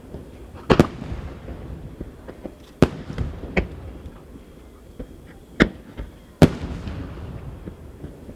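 Large aerial firework shells (10-inch shakudama) bursting: about six sharp booms at uneven intervals, some close together, each followed by a rolling echo.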